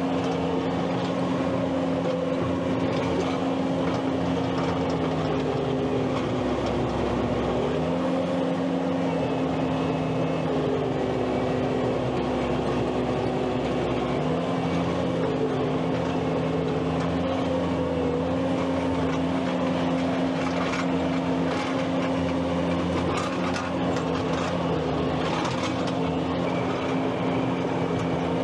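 Skid steer loader running steadily with a wavering hydraulic whine, its engine note dipping and recovering a few times as it takes load. A few short knocks come near the end.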